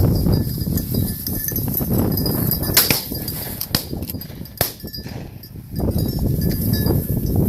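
Steady low rumble of wind and movement through field cover, with three sharp clicks or knocks about a second apart near the middle.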